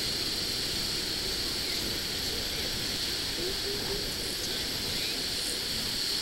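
Steady wind noise on the microphone mixed with the hiss of ocean surf, with a faint short call about halfway through.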